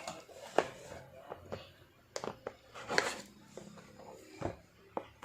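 A cardboard box being opened and its contents handled: scattered knocks, taps and light scrapes of cardboard and plastic packaging.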